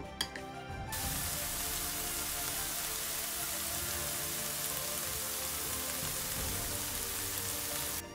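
Minced beef frying in a pan: a steady, loud sizzle that starts suddenly about a second in.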